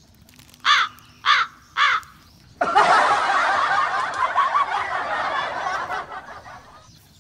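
Three loud caw-like calls about half a second apart. Then, about two and a half seconds in, a dense chatter of many overlapping calls that lasts about four seconds and fades away.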